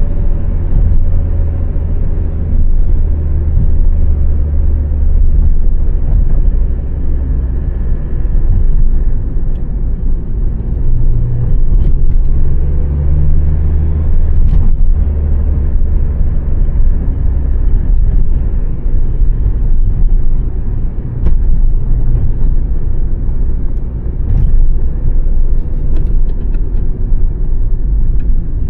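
A 2006 Honda Civic's 1.8-litre four-cylinder petrol engine and tyres while driving: a steady low rumble of engine and road noise. The engine note rises briefly partway through, and there are a few faint clicks.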